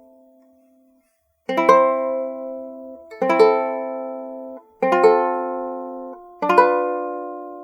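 Handmade Honduran tres, a small three-course steel-string guitar, strummed in single chords about every second and a half, each left to ring and fade before the next. The first chord comes after a moment of silence about a second and a half in, and four chords sound in all.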